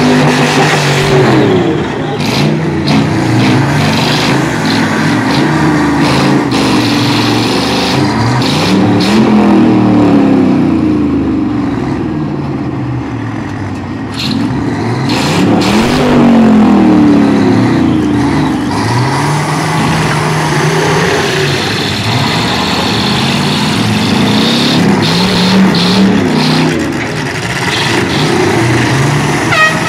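Several demolition-derby pickup truck engines revving hard, their pitch repeatedly rising and falling, with sharp bangs and crunches of trucks colliding.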